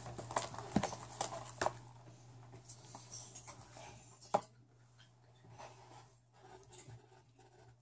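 Homemade slime being mixed in a bowl just after borax water is added: irregular soft sticky clicks and squelches that grow fainter, with one sharper click about halfway through.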